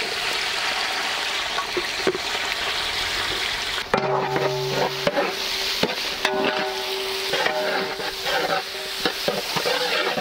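Onions sizzling in hot oil in a large aluminium pot as they are tipped in and stirred with a long metal ladle, a steady frying hiss with the ladle scraping and knocking against the pot, one sharper knock about four seconds in.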